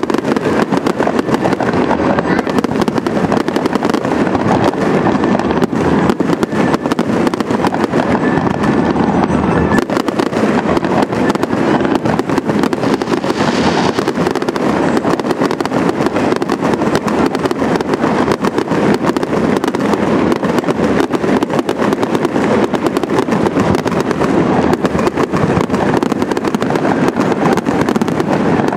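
Fireworks display: aerial shells bursting in a dense, unbroken stream of bangs and crackles.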